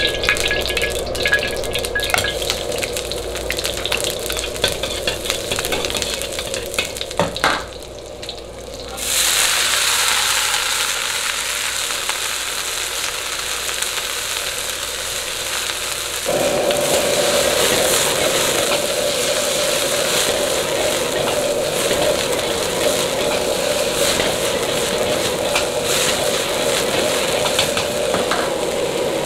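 Bean sprouts stir-fried in hot oil in a carbon-steel wok: a steady sizzle, a brief lull after a knock, then a sudden louder sizzle about nine seconds in as the sprouts hit the oil. About halfway through, a steady low roar from the gas wok burner comes in under the frying.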